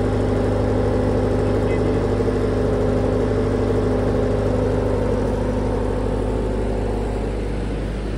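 Doosan 30 kVA diesel generator set running steadily with a constant hum, carrying a partial load of about 17 amps from an inductive load bank. The sound eases slightly near the end.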